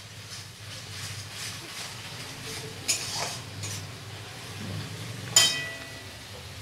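Metal spatula stirring and scraping onion and garlic paste in an aluminium kadai, with faint sizzling; a few light clicks, then one sharp ringing clink about five seconds in as the spatula is set down against the pan.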